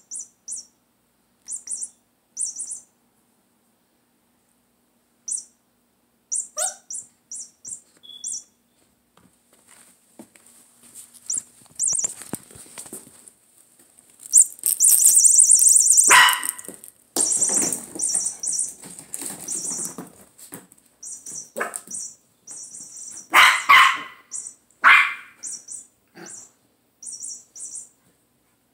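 Chihuahua puppies playing and barking: short, sharp barks now and then, the loudest ones in the second half.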